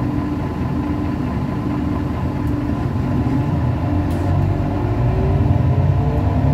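Irisbus Crealis Neo 12 city bus heard from inside the cabin, its engine idling with a steady hum; about four seconds in it picks up and rises in pitch as the bus pulls away.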